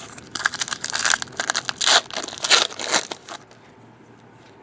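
Trading-card pack wrapper being torn open and crumpled, a dense crinkling crackle lasting about three seconds and stopping well before the end.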